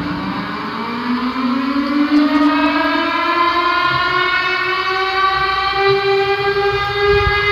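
Tornado warning siren winding up, its wailing tone rising slowly and steadily in pitch and levelling off near the end.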